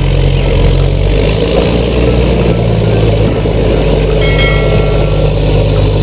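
Large diesel wheel loader with a fork attachment running under load as it works its forks, a steady low engine drone. A brief high whine comes in about four seconds in.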